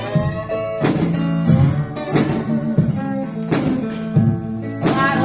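Live band music between sung lines: a strummed guitar over a steady beat of percussion hits, about three hits every two seconds.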